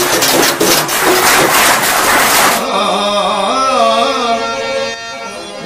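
Steel plates being banged and hands clapping, a dense rhythmic metallic clatter. About two and a half seconds in it cuts abruptly to a man singing a Telugu padyam verse in a long, wavering melodic line.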